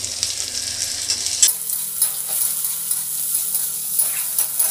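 Chopped onion sizzling as it fries in hot oil in a kadai, a steady hiss with small crackles, while a steel spatula stirs it through the fried peanuts.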